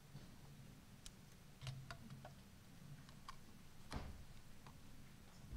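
Near silence with a few faint, scattered clicks and a soft knock about four seconds in: small handling noises from people working at a lectern.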